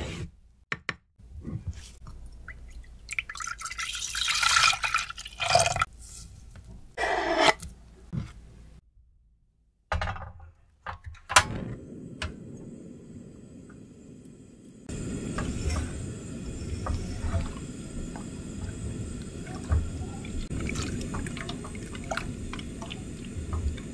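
A run of kitchen sounds. First a wooden pestle grinds tea leaves in a ceramic mortar, then liquid pours, and a sharp click comes near the middle. From about two-thirds of the way in, a gas burner hisses steadily under a pan of milk while a silicone spatula scrapes and taps as it stirs.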